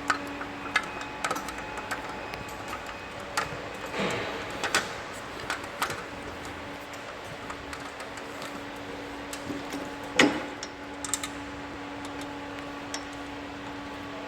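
Scattered metal clicks and taps of a hydraulic hose fitting and tools being handled on a two-post lift cylinder as the hose is connected, with the sharpest knock about ten seconds in. A steady low hum runs underneath.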